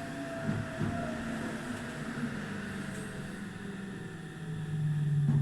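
Meitetsu 2000-series electric train running, heard from inside the front of the train: a steady hum of motors and wheels on rail with low tones that sink slightly in pitch, and a low hum that grows louder near the end.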